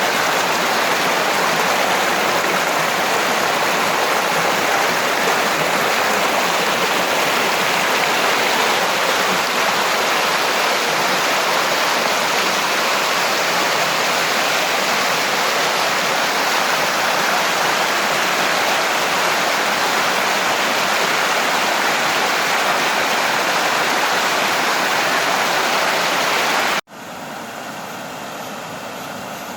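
Waterfall rushing steadily, a dense even wash of falling water. Near the end it cuts off suddenly to a much quieter sound.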